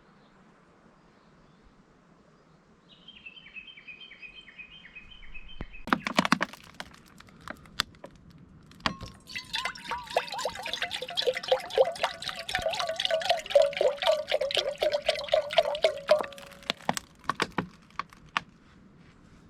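A drink poured from a bottle, glugging in a long run whose pitch falls steadily as the bottle empties, with small clinks. A short noisy burst comes just before it.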